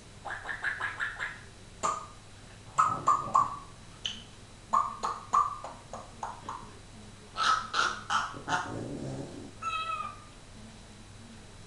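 African grey parrot calling: a string of short pitched calls and clicks in bursts, with brief pauses between them.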